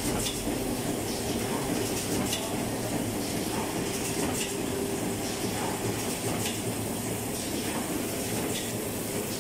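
A fully automatic wet wipes production line running: a steady machine hum with a constant low tone, broken by sharp mechanical clacks that recur at a regular pace, about every two seconds.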